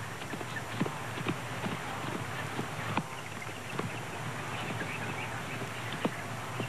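Galloping hoofbeats of a running wildebeest: irregular thuds over grassland, a few a second, above a steady hiss.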